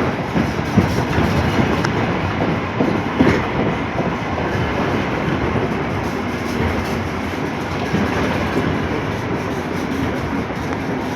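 A train running on the rails: a steady rumble with the wheels clicking over rail joints, the clicks most frequent in the first few seconds.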